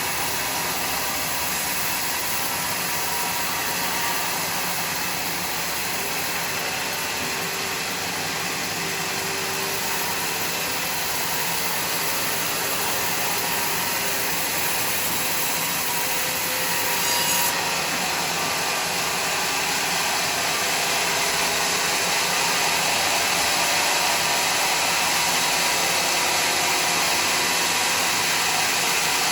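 Sawmill blade cutting through a bayur log with a steady, continuous sawing noise. The sound shifts slightly about halfway through and grows a little louder after that.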